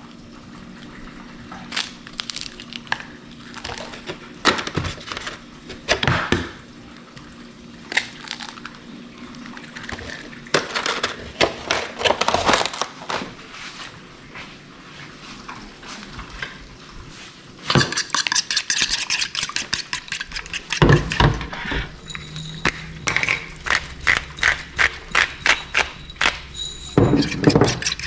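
Kitchen clatter of pans, dishes and utensils being handled: scattered knocks and clinks at first, then a fast run of sharp clicks and clatter for the last ten seconds, with a couple of heavier thuds.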